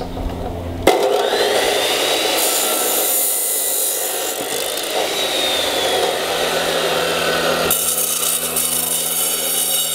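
RIDGID abrasive cutoff (chop) saw starting up about a second in and grinding through a half-inch plain-bar iron baluster, the spinning wheel's pitch sliding under a loud hiss of metal being cut.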